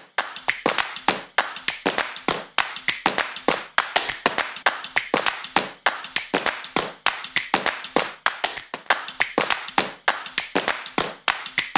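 Rhythmic hand clapping in a steady, repeating pattern, about five claps a second.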